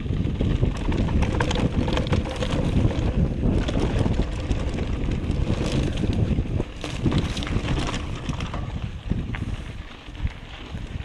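Wind buffeting the microphone over the noise of a mountain bike riding fast down a dry dirt singletrack: tyres on dirt and the bike rattling with many small knocks. It eases off a little near the end.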